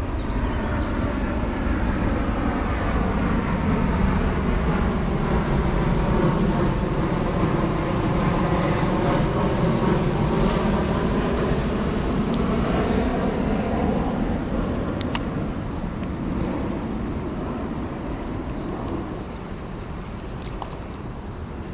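Airplane passing overhead: a steady rumble with slowly sweeping tones that fades over the last several seconds.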